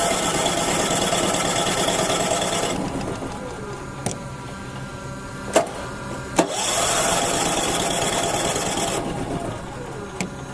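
A small motor whirs in two short spells: the first stops with a click about three seconds in, the second starts with a click a little past the middle and runs about two and a half seconds. Separate clicks fall between the spells.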